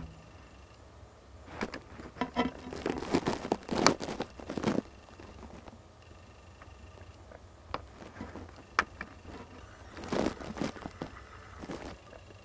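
Dry leaves, grass and twigs crackling and rustling in two bursts, about two seconds in and again around ten seconds in, with a couple of single snaps between.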